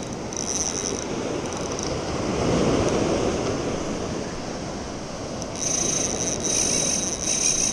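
Sea surf washing against the rocks, with wind on the microphone. A high whir from a small spinning reel, a Shimano Sahara 1000, comes and goes, briefly near the start and again from about halfway through, while a hooked bluefish is fought on light rock-fishing tackle.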